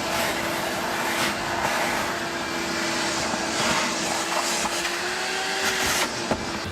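RIDGID WD1685 wet/dry shop vacuum running, its motor holding a steady whine under the rush of air, with a few brief swells of louder rushing.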